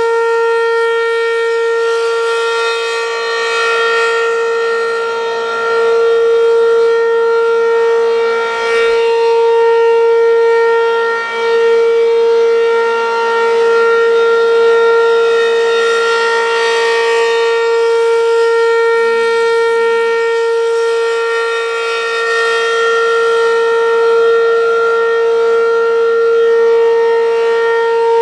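ACA P-15 outdoor warning siren sounding the steady alert signal on a test. It is a loud, continuous tone held at one pitch, swelling and fading gently in loudness.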